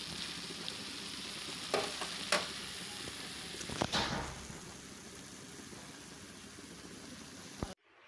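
A pan of Malabar spinach (pui shak) with lentils sizzling steadily as it finishes cooking, with a few knocks of a spoon against the pan around two and four seconds in. The sizzle cuts off suddenly near the end.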